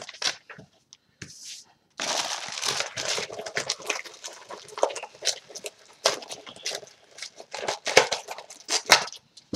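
Plastic trading-card packaging crinkling and tearing as it is opened, with many sharp crackles, starting about two seconds in.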